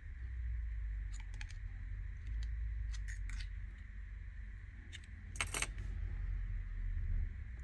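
Small metallic clicks and clinks of metal repair tools and the phone's frame being handled on a silicone work mat, a few scattered taps early on and a louder clatter about five and a half seconds in, over a steady low rumble.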